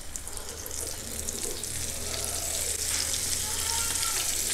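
Flour-coated chicken pieces deep-frying in hot oil in a wok: a steady crackling sizzle that grows gradually louder, over a low steady hum.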